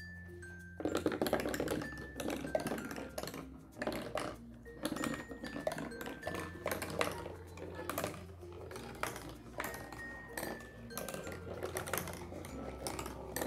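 Glass marble rolling down a cardboard marble run, clicking and rattling as it drops from one popsicle-stick ramp to the next. The rattling starts about a second in and comes in clusters. Background music plays over it.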